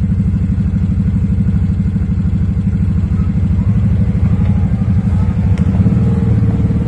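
Side-by-side UTV engine running at low revs with a steady, even low rumble, picking up a little about six seconds in.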